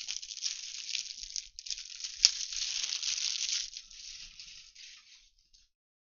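Plastic wrapping on a pack of top loaders (rigid plastic card holders) crinkling and tearing as it is opened, with one sharp snap a little over two seconds in.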